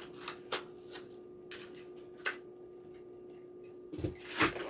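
Plastic blister pack of a die-cast toy car being handled and pried open: scattered sharp clicks and crackles, with a louder burst of handling noise about four seconds in, over a steady low hum.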